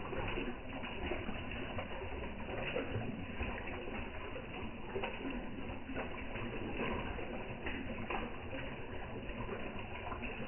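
Koi feeding at the pond surface, sucking in floating pellets with scattered small slurps and splashes over a steady background hiss.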